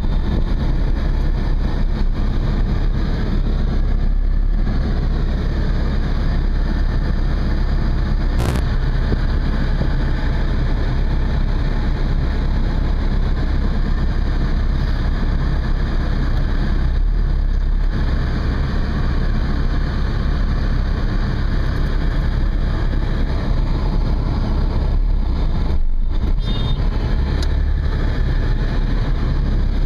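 Steady engine and traffic noise heard from inside a car's cabin in slow, congested traffic. A single sharp click sounds about eight seconds in.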